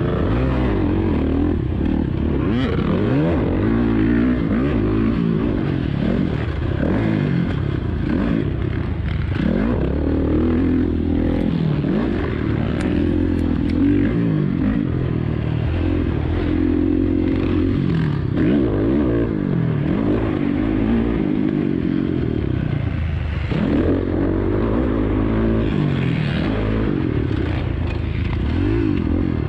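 Dirt bike engine heard from on board while riding a motocross track, its pitch repeatedly rising and falling as the rider opens and closes the throttle.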